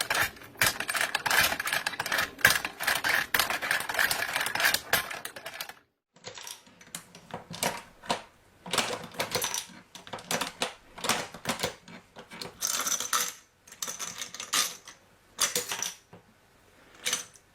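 Hand-operated ammunition belt-loading machine being cycled: rapid metallic clicking and clatter as cartridges are fed from the tray and pushed into the belt. A brief silence about six seconds in breaks it into a steady run and then irregular clusters.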